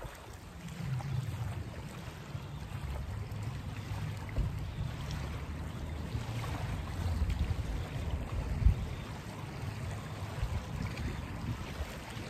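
Wind rumbling on the microphone over gentle waves washing on the beach, a low uneven roar with one sharper bump about two-thirds of the way through.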